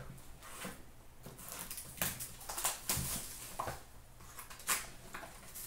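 Hands handling cardboard trading-card boxes and wrapped packs: scattered taps and rustles, a few sharper clicks about two, three and four and a half seconds in.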